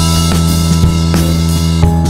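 Background music with a drum-kit beat under sustained pitched notes.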